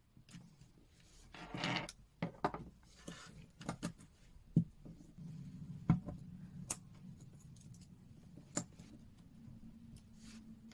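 Scattered small clicks and short scrapes of hand tools working on a titanium watch bracelet as it is taken apart.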